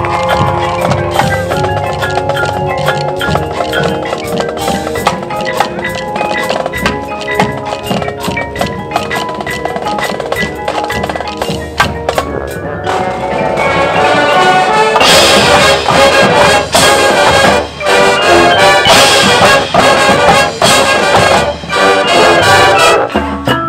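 High school marching band playing, with brass and percussion. About halfway through it gets louder and fuller with sharp drum hits, breaking off briefly a few times.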